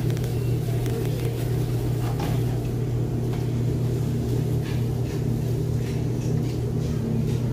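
Steady low mechanical hum of restaurant kitchen equipment, with a few faint clicks and taps from food being prepared at the counter.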